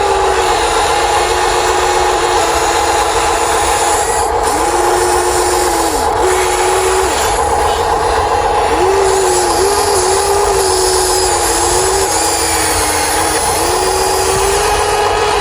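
Electric motors and gearboxes of RC construction models whining in on-off stretches, each ramping up at the start and down at the end, with a steady hum and gear noise underneath.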